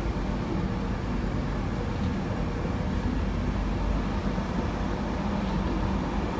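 LNER Mark 4 passenger coaches rolling past along the platform: a steady low rumble of wheels on the rails with a faint hum.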